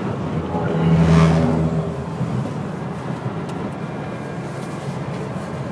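Steady road and engine noise inside a moving car, with a brief louder swell about a second in.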